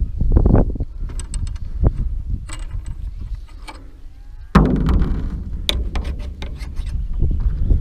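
Scattered metallic clicks and knocks of parts and tools being handled during assembly, over a low wind rumble on the microphone, with a sudden louder knock about four and a half seconds in.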